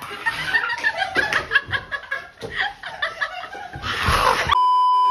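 People laughing and giggling in short bursts, with a little chatter. Near the end the laughter is cut off by a steady, flat electronic censor bleep.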